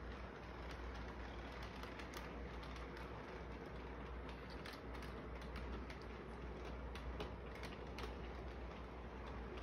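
Electric model train running on its track: a steady mechanical whir over a low hum, with irregular clicks and rattles.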